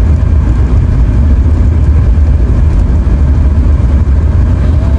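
Steady low rumble of a car on the road, heard from inside the vehicle: engine and road noise with no breaks.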